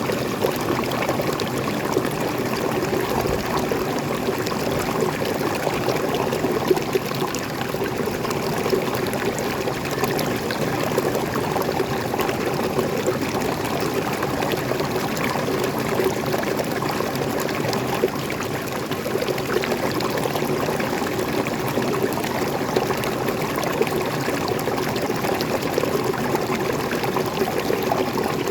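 Small waterfall and stream water falling and flowing steadily, an even splashing and trickling rush.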